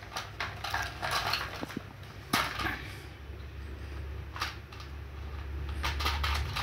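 Plastic toy tractor handled and rolled across a cement floor: its plastic wheels and body rattle, scrape and knock in short irregular clatters. The sharpest knock comes a little over two seconds in.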